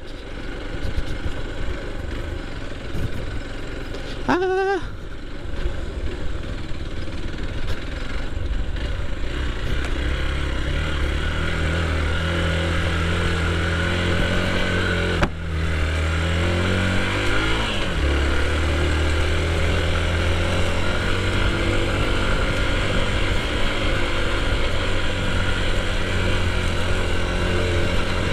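Motorcycle engine running steadily under way, pulling harder from about ten seconds in. The engine note drops briefly about fifteen seconds in, as at a gear change, then holds steady. A brief wavering high tone sounds about four seconds in.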